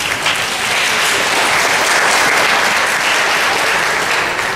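Audience applauding, a steady burst of clapping that starts at once and dies away near the end.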